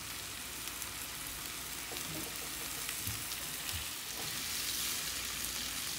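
Spiced chicken, red pepper and onion frying in a non-stick pan on a gas burner: a steady sizzle as sweet corn is added and stirred in with a spatula.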